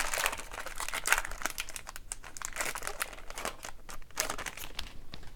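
Wrapper of a hockey card pack being torn open and crinkled by hand, with a run of irregular crackles.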